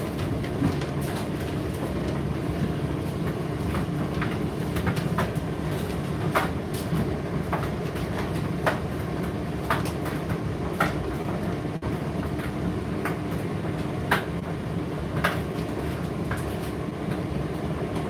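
Indesit IDC8T3 condenser tumble dryer running, a steady motor and drum hum with irregular light clicks and taps about once a second.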